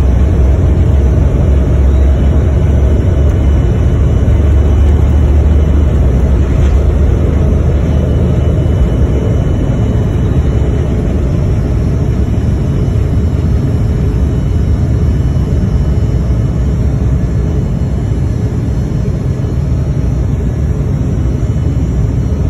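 Cabin noise inside an Embraer E175 during its takeoff roll and climb-out: the twin GE CF34 turbofans run at takeoff thrust over a deep runway rumble. The rumble eases about halfway through as the jet lifts off.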